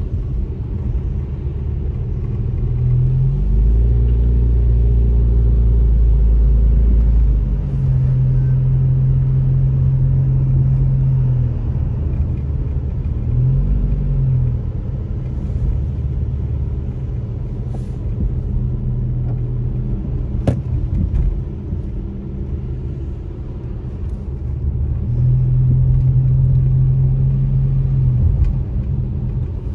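Car driving, heard from inside the cabin: steady engine and road rumble with a low drone that comes and goes and briefly glides up and down in pitch. One sharp click about two-thirds of the way through.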